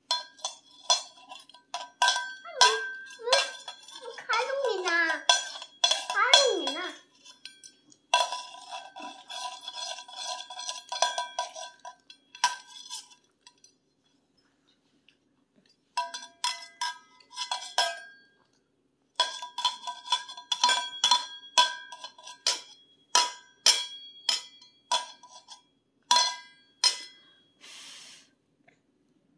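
A steel plate and steel tumbler knocked together over and over, ringing metallic clangs in irregular bursts with a few pauses. A baby's voice rises and falls briefly a few seconds in, among the clangs.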